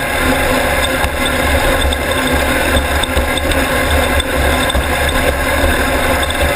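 Class 1600 off-road race buggy's air-cooled VW engine running at a steady pitch, heard from on board over the rough course, with a few faint knocks.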